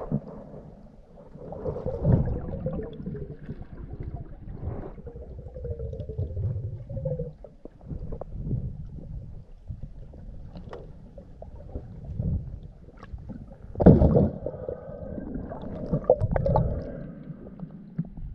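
Muffled underwater sound from a camera submerged in its housing: water sloshing and rumbling around it as the diver swims through kelp, with a few dull knocks, the loudest about three-quarters of the way through.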